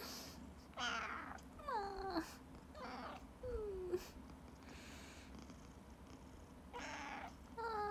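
Scottish Fold cat giving about four short meows, each sliding down in pitch, with short breathy hisses between them.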